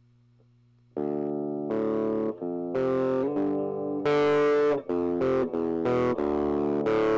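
A faint low hum, then instrumental background music comes in about a second in, led by guitar with synthesizer.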